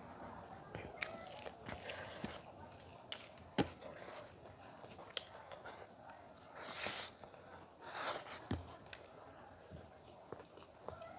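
Close-up eating sounds: fingers squishing rice and curry on a plate, then wet mouth smacks and chewing of a handful of rice. Sharp clicks come at irregular moments, with a couple of longer smacking bursts past the middle.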